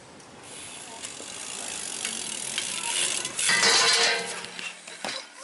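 BMX bike riding up close on paving, the tyre noise growing steadily louder, loudest from about three and a half to four and a half seconds in, then falling away.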